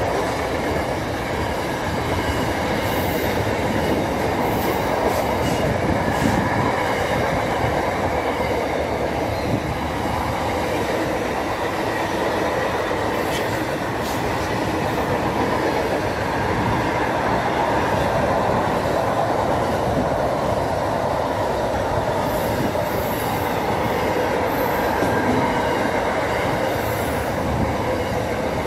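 Long container freight train passing close at speed, its wagons' wheels on the rails making a steady, unbroken rolling noise.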